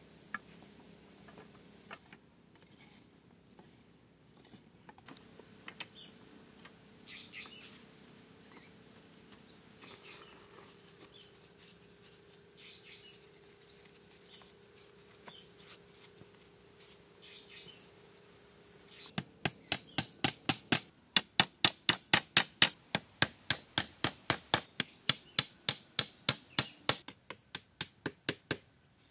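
Scattered high bird chirps over a faint steady hum. About two-thirds of the way in, a fast, even run of loud, sharp knocks starts, several a second, like repeated tool strikes, and stops shortly before the end.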